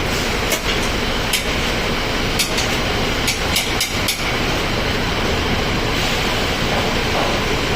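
Mercedes-Benz OF-1722M bus running steadily, a low engine and road rumble with sharp clicks and rattles now and then, most of them in the first half.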